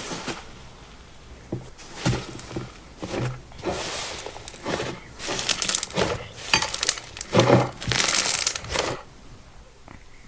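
Slime with a powdery coating being squeezed and pressed by hand, crackling and crunching in irregular bursts that are loudest just before they stop, about a second before the end.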